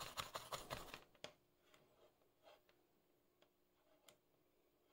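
Soldering iron tip jabbed and scraped in brass-wool tip cleaner: a quick run of faint scratchy strokes for about the first second, then a few isolated faint ticks.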